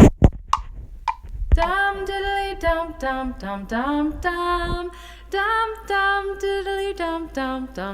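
A song with a female singing voice playing back, a run of long, steady held notes one after another, after two loud knocks right at the start.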